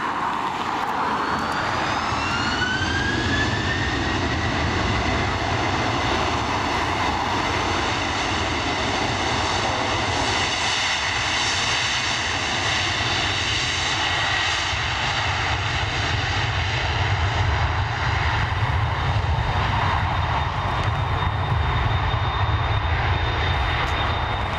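Jet airliner engines spooling up: a whine rises in pitch over the first few seconds, then holds steady at high thrust over a constant low rumble.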